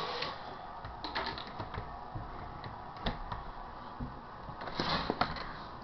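Scattered light clicks and knocks of handling at a window sill, some in quick little clusters of taps.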